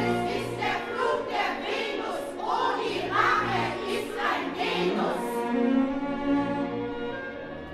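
Live stage recording of an orchestra with singing for about the first five seconds, after which the singing stops and the orchestra holds sustained string chords.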